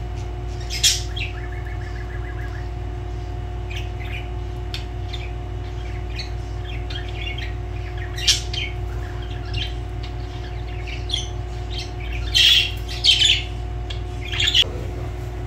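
Budgerigars chirping in short, scattered calls, with a brief rapid trill about a second and a half in and a few louder chirps near the end. A steady low hum runs underneath.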